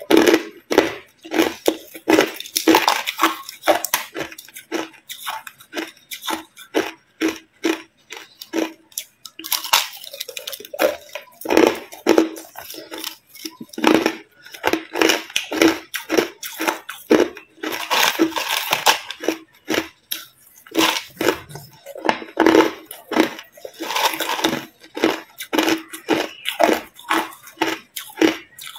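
A person chewing crushed ice with the mouth close to the microphone, one sharp crunch after another in quick irregular runs, with short pauses between mouthfuls.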